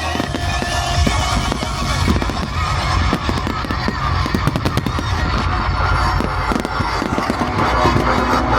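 Fireworks bursting and crackling in rapid succession over loud show music, with dense crackle about five to eight seconds in.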